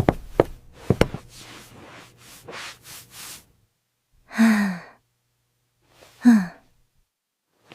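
A couple of sharp clicks and soft breathy rustling, then two short breathy sighs, each falling in pitch, about four and a half and six seconds in.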